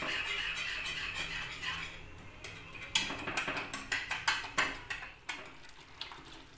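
A small wire whisk beating besan batter in a metal kadhai to break up lumps: steady scraping for the first two seconds, then irregular clicks of metal against the pan that thin out near the end.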